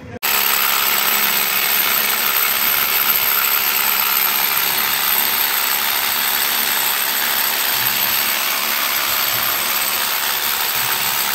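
Power drill running steadily: a loud, even hiss that cuts in and cuts off abruptly.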